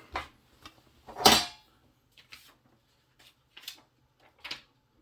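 Trading cards and their packaging being handled: one louder rustle about a second in, then several short soft clicks and taps as the cards are shuffled.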